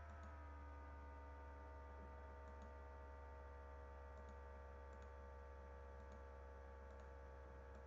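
Near silence: a steady low electrical hum, with a few faint, scattered computer mouse clicks.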